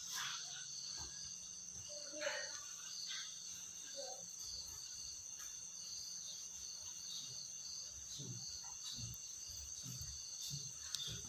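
Night insects chirping: a steady high trill under a pulsing chirp that repeats about two or three times a second.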